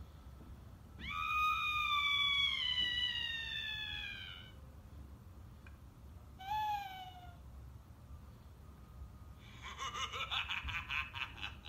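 Small handheld Halloween sound machine playing canned spooky effects through its tiny speaker. A long wailing cry falls slowly in pitch over about three seconds, a short falling cry follows, and near the end comes a rapid fluttering, pulsing sound.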